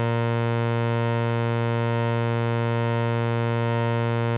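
A single sustained synthesizer note at a steady pitch and level, played through an EarthQuaker Devices Pyramids flanger pedal set for a gentle, slight flange.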